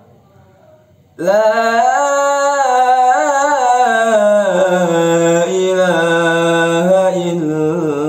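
A young man's solo voice calling the adhan (Islamic call to prayer), singing one of its closing phrases in a long, ornamented melismatic line. It comes in after about a second's pause and is held with wavering, turning pitch.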